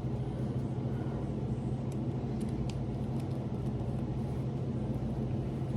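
Steady low background hum, with a few faint light clicks from small plastic doll parts and a tiny dress being handled about two to three seconds in.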